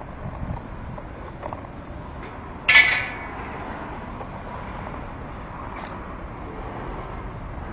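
Bicycle riding slowly, with a steady rush of wind and tyre noise; nearly three seconds in comes one sharp metallic clank that rings briefly and fades.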